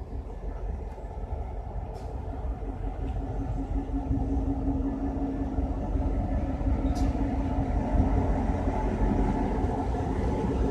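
Diesel freight train running past close by: a steady low rumble that grows louder, with a steady engine hum in the middle of it.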